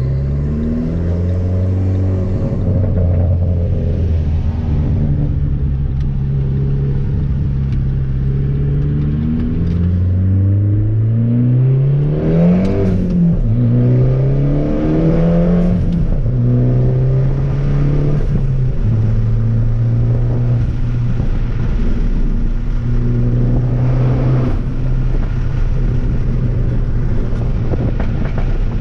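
Fiat Abarth 500's turbocharged 1.4-litre four-cylinder engine driving through the gears. The engine note holds steady, then climbs and drops at gear changes a few times around the middle of the stretch before settling into a steady cruise. Wind noise runs underneath.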